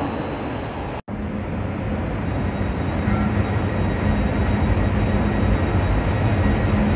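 Steady low rumble and hum of electric trains standing at the platforms of a large station train shed. The sound cuts out for an instant about a second in.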